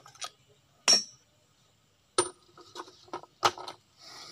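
Sharp metallic clinks of steel track-roller parts being handled while the roller is taken apart, each with a brief ring: a loud one about a second in, two more a little after two and three and a half seconds in, with lighter taps between.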